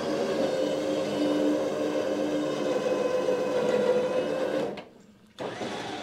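A vehicle engine runs steadily under load while towing a log trailer. The sound cuts out abruptly about four and a half seconds in, then comes back quieter near the end.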